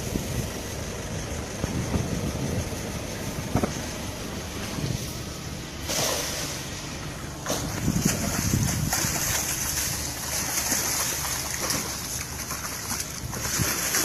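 Wind rumbling on the microphone, with water splashing as a cast net hits the water and is hauled back through it; the splashing starts about six seconds in.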